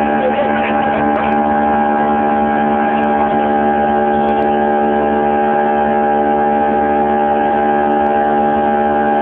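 Boat engine running with a steady drone: an even, unchanging hum with several held tones.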